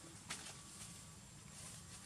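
Faint outdoor ambience: a steady low hum and hiss with a few sharp clicks, the loudest about a third of a second in.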